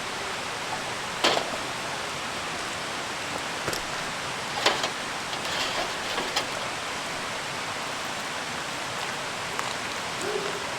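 Wood campfire crackling, with a few sharp pops standing out over a steady hiss.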